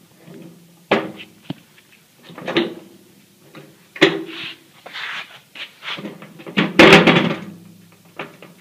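A series of separate knocks and clunks from objects being handled, with rustling between them; the loudest is a clattering bang about seven seconds in.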